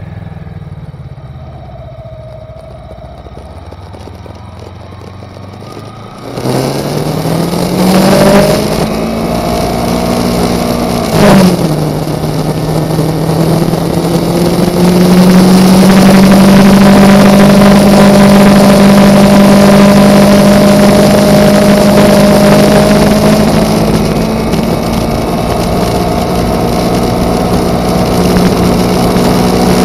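Kawasaki Ninja parallel-twin motorcycle engine, quiet at first, then pulling away about six seconds in with the revs climbing. It shifts up about five seconds later and then runs steadily at cruising speed with rushing wind noise.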